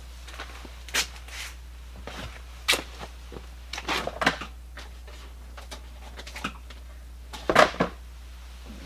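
Items being handled and set down: a handful of scattered short knocks and rustles, the loudest near the end, over a steady low hum.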